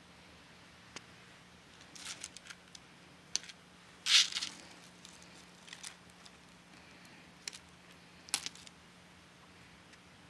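Costume jewelry, beaded necklaces, faux pearls and metal chains, clicking and clattering as a hand sifts through a pile: scattered light clinks, with the loudest clatter about four seconds in.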